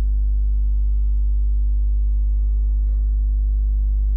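Steady low electrical mains hum, a buzz at about 50 Hz with its overtones, running unbroken through the recording.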